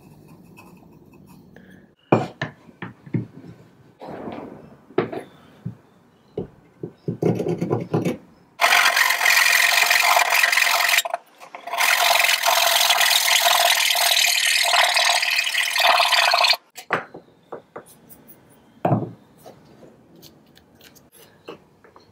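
Handsaw cutting through a small clamped block of wood: a loud, steady rasping run of strokes with a short break partway through. Before it come several knocks and short scrapes of the wood being handled and set up, and a few more knocks after the cut.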